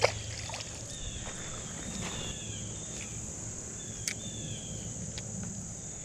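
Steady high-pitched insect chorus, with a small splash in the water right at the start, a few short falling chirps, and one sharp click about four seconds in.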